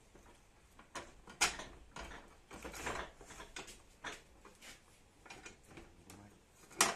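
Metal trap parts (lid, axle and toothed ring) clinking, knocking and scraping against each other and the corrugated PVC tube as they are fitted into its end by hand. The knocks come irregularly, with sharp ones about a second and a half in and again just before the end.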